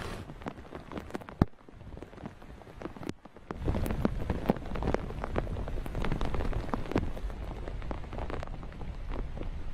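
Heavy rain falling, with many sharp single drop ticks. About three and a half seconds in it becomes louder and fuller, a steady downpour with a deeper noise underneath.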